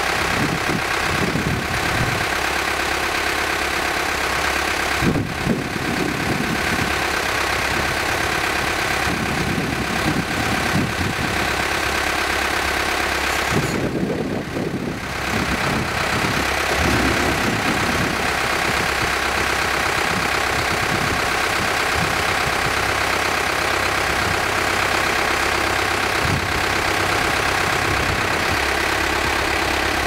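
Engines of a self-propelled grape harvester and a tractor running steadily at close range, a continuous machine drone with a steady whine over it.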